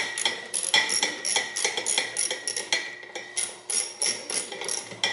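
Rapid, uneven metallic clicks and clinks, several a second, each with a short ring: a wrench turning one of the long bolts that hold the drill press's column to its cast-iron base.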